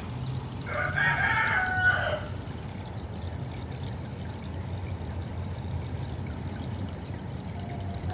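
A rooster crows once, about a second in, over the steady pouring and splashing of a pond fountain.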